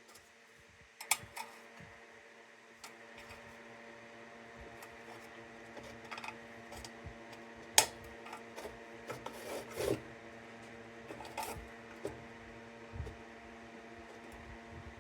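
Light, scattered clicks and taps of a thin sheet-metal lantern being handled and pressed while a dent is worked out of it, with one sharper knock about eight seconds in. A steady electrical hum runs underneath.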